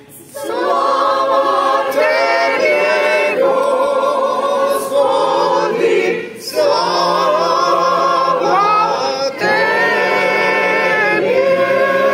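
Church choir singing Orthodox liturgical chant a cappella in several voices, close by. The phrases break for short pauses about three, six and nine seconds in.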